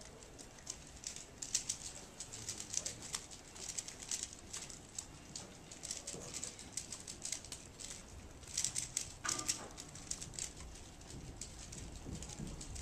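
Rapid, irregular clicking and clacking of a Rubik's cube's layers being turned quickly by hand, with denser flurries of turns about a second and a half in and again past the middle.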